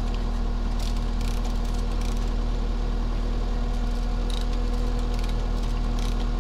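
An engine idling steadily, with scattered light clicks and rattles of a hand-worked chain hoist's chain.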